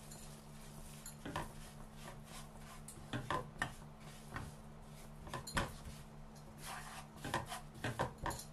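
A cooking spoon knocking and scraping against a pan as roasted semolina is stirred in ghee: scattered short knocks, a small cluster about three seconds in and several more near the end.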